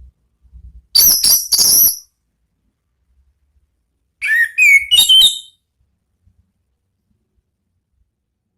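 Orange-headed thrush (anis merah) singing in the loud, open 'ngeplong' style. A burst of three short, very high notes comes about a second in, then a phrase of quick sliding whistled notes around four seconds in.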